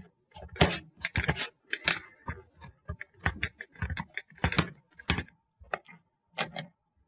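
A palm mashing and kneading soft chena (fresh cheese curd) with sugar and semolina on a plate: irregular squishing, smearing strokes, a few a second.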